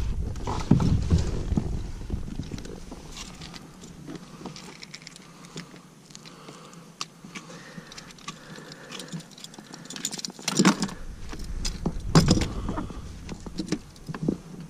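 Gloved hands unhooking a speckled trout from a lure on a plastic fishing kayak: scattered small clicks and rattles of hooks and gear, with a few louder knocks against the hull, the loudest about ten and twelve seconds in.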